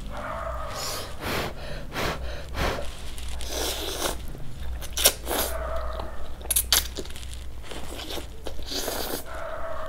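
Close-miked slurping and chewing of instant noodles in broth, with irregular wet smacks and sharp mouth clicks.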